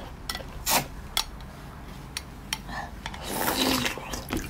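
Soft green slush ice being bitten and slurped off a spoon: a few short crunches in the first second and a half, then a longer rasping slurp about three seconds in.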